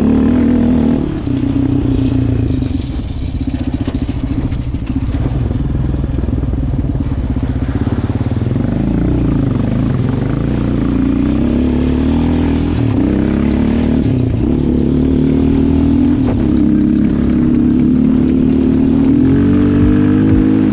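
Sport ATV's engine running and revving on a dirt track, its pitch rising and falling with the throttle. In the middle, water splashing and rushing as the quad fords a rocky stream.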